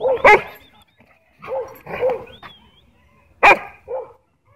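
Dog barking in play: about six short, sharp barks with gaps between them, the loudest near the start and about three and a half seconds in.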